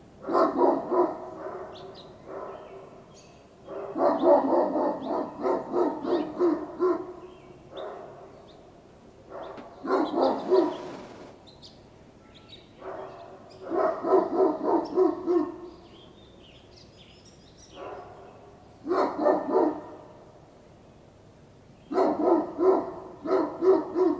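Great Pyrenees dogs barking in six bouts of quick barks with short pauses between them, part of a barking spell that goes on for long periods with no apparent provocation.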